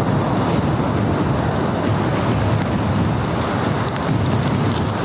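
Storm at sea aboard a fishing trawler: heavy seas washing over the deck and wind rushing over the microphone. It makes a loud, steady noise of wind and water with a deep rumble underneath.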